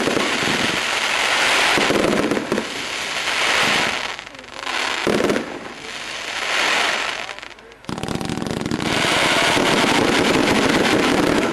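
Wolff "Jackhammer" firework going off: dense, rapid crackling bangs that come in waves, thin out about halfway through, and start again in full just before the end.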